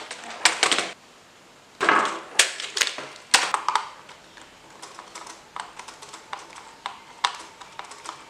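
Plastic clicks and clatter of a computer keyboard being handled as screws are taken out of its back plate: bunches of rattling clicks over the first few seconds, then sparser single ticks.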